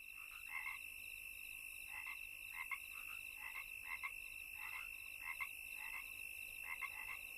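Frogs croaking at night: short croaks repeating irregularly, often in pairs, over a steady high-pitched trill.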